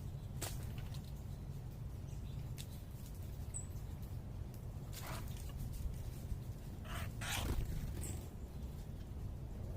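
A steady low background rumble of urban noise, with a few very short, high bird chip notes and several sharp ticks and brief rustling noises, the loudest cluster about seven seconds in.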